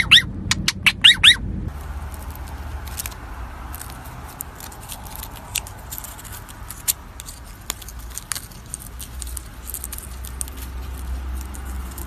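Parakeet giving a quick run of about six loud, sharp calls, which stops about a second and a half in. After that, a caique plays on its back with a strip of paper: scattered light clicks and crinkles from its beak and the paper over a low rumble.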